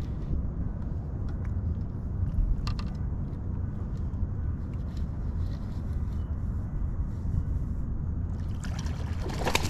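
Water lapping and trickling around a small fishing boat over a steady low rumble, with a few faint clicks. A louder burst of splashing comes near the end.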